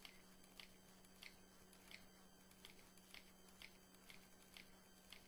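Near silence: room tone with a faint low steady hum and faint short clicks about twice a second.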